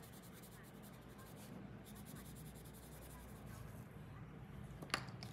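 Colored pencil scratching faintly on paper as an area is shaded in, followed by a sharp click near the end.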